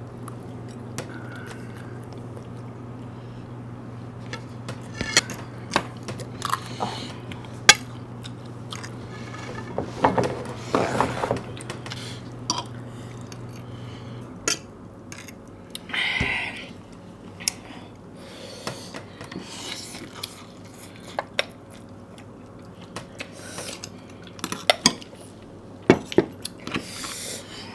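Eating at a table: chewing, with spoons and forks clicking and scraping against ceramic plates and bowls in scattered sharp clinks. A low steady hum in the background stops about halfway through.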